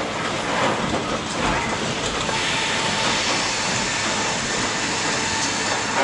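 Log-yard machinery running: a chain log conveyor and a rail-mounted log crane make a steady mechanical din with faint knocks.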